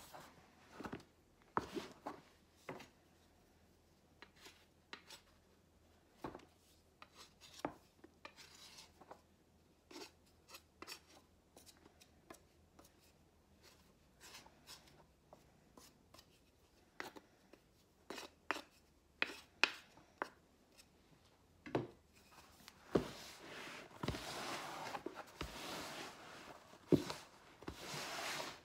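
Wooden spoon knocking and scraping against a large plastic mixing bowl while stirring stiff bread dough: irregular soft knocks every second or so, turning to a stretch of continuous scraping and rubbing near the end.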